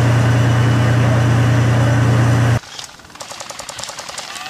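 T-90 tank's 1000 hp diesel engine running loud and steady with a deep hum. It cuts off abruptly about two and a half seconds in, giving way to quieter rapid sharp crackling.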